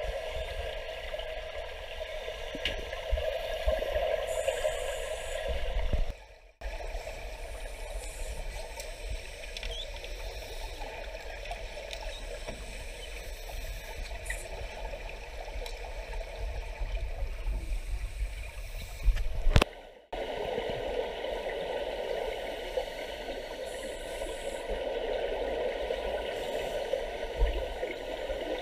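Underwater sound through a camera housing: scuba divers' exhaled regulator bubbles gurgling over a steady muffled water hiss. The sound drops out briefly twice, about a quarter and two-thirds of the way in.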